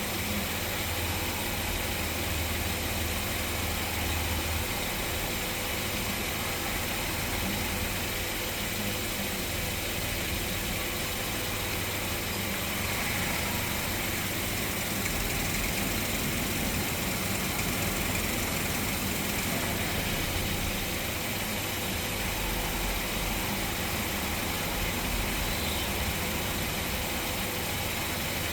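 A car engine running steadily, with a constant hiss.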